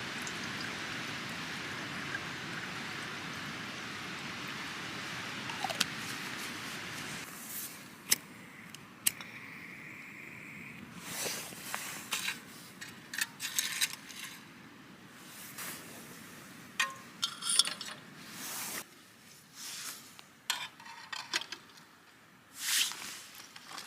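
Clinks and knocks of metal camp cookware being handled while a dehydrated meal is prepared. A steady rushing noise runs underneath for the first seven seconds, then stops abruptly.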